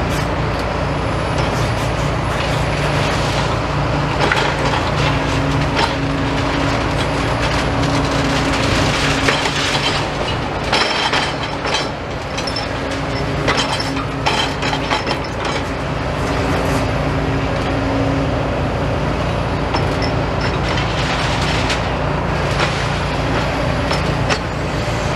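Demolition excavator engine running steadily, with repeated cracking and crunching as the machine breaks up building material.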